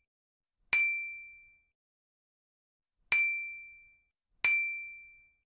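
Three bright bell-like dings, each a sharp strike that rings at one clear pitch and fades out in under a second. The second and third come about a second and a half apart. They are an added chime sound effect marking the subscribe, comment and like buttons popping up on screen.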